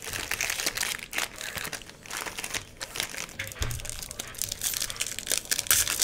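Foil wrappers of 2019 Panini Score football card packs crinkling as hands pick one up and tear it open, with a soft low bump about halfway through.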